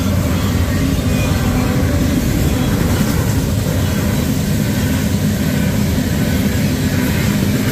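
Freight cars of a Union Pacific manifest train rolling through a grade crossing: a loud, steady rumble of steel wheels on the rails.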